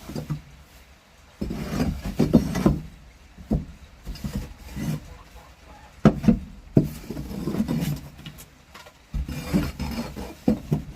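Irregular scraping and rustling in short bursts, like soiled wood-shaving litter being raked and pulled out from under a chicken roost.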